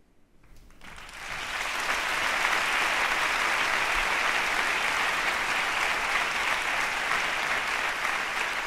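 Audience applause that swells up about a second in and then holds steady.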